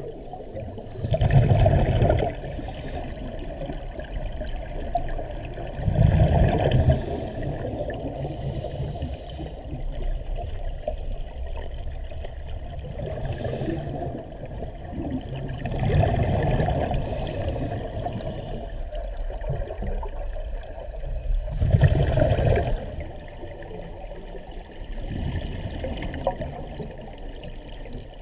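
Scuba diver's exhaled bubbles from the regulator underwater, a loud bubbling rush every five seconds or so, with a steady underwater hiss between.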